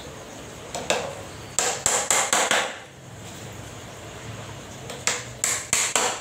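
A small hammer tapping nails into the wooden slats of a cage ladder, in two quick runs of sharp strikes: about nine taps between one and three seconds in, then about five more near the end.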